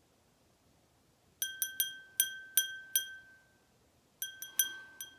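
A small bell rung in two quick runs of strikes, about six and then four, each a clear high ring that dies away within half a second.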